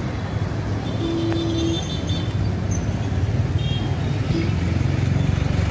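City street traffic: a steady low engine rumble from motorbikes and other road vehicles, with a short steady tone about a second in.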